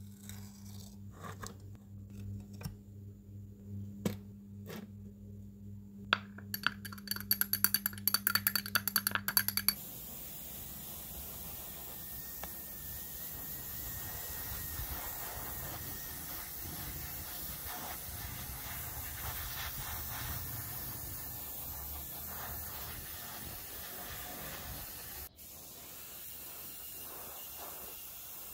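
Light clicks over a low hum, then a few seconds of rapid rattling clicks, then a long steady spraying hiss of paint being sprayed, which dips briefly near the end.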